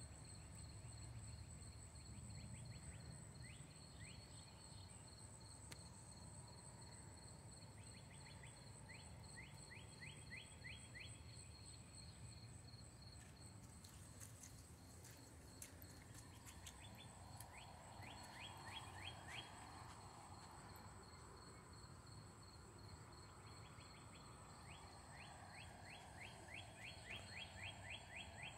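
Faint night insects calling. One gives a steady, high-pitched pulsing trill throughout. Another gives a short series of rapid chirps four times, about every eight seconds.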